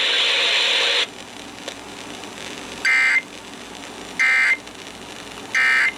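Three short Emergency Alert System end-of-message (EOM) data bursts, the buzzy digital tones that close an alert, each about a third of a second long and about 1.4 s apart. They follow about a second of loud radio hiss that cuts off.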